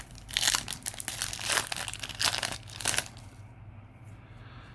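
A foil Yu-Gi-Oh! booster pack being torn open and crinkled in the hands, with a run of sharp crackles for about three seconds before it goes quiet.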